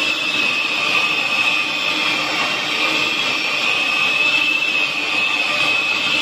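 Electric hand mixer running steadily, its beaters whipping buttercream in a stainless steel pot, with a steady high whine that wavers slightly in pitch.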